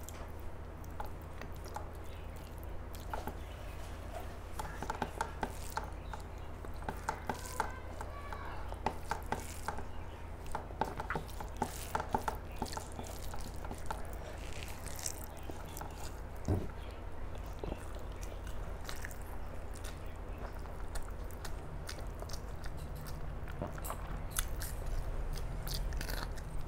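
A person eating a meal of rice and curries: chewing with scattered small clicks and smacks, over a steady low hum.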